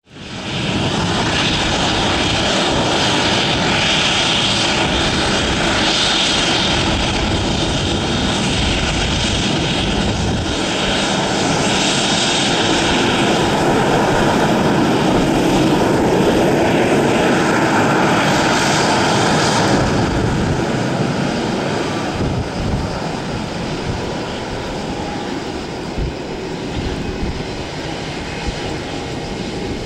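Twin GE CF34-10E turbofans of an Embraer 190 at taxi power: a steady jet whine and rush. It grows louder as the jet passes close by, then eases off somewhat as it turns away.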